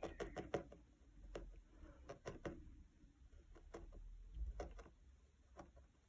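Felting needle stabbing wool fibres through felt into a foam pad: faint, irregular pokes, a quick run of them at the start, then scattered single ones.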